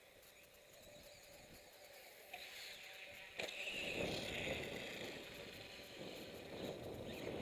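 Small electric RC dirt bike's motor whining as it runs on a dirt track, faint at first. The whine turns louder from about three and a half seconds in, with a rough noise underneath it.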